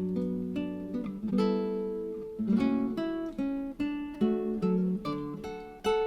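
Background music: an acoustic guitar picking a run of notes, each one ringing and fading.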